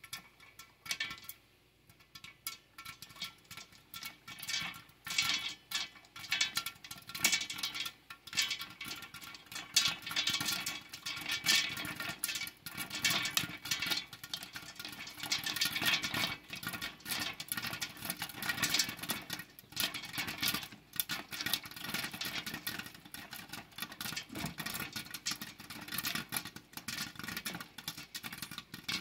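Popcorn kernels popping in hot bacon grease in a covered pan: a sizzle with many sharp, irregular pops, sparse at first and coming thick and fast from a few seconds in.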